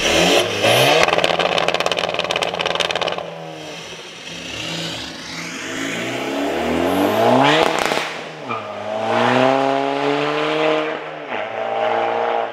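Tuned 1.9 TDI diesel of a 2004 Audi A4 B6 Avant, running a larger turbo at 3.7 bar boost and a custom 3-inch turbo-back exhaust, accelerating hard away. The engine note climbs in pitch and drops back at each upshift, three times over, with a rattly edge early on.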